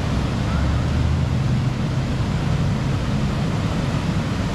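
Steady rush of a swollen, flooding river, with a low rumble under it.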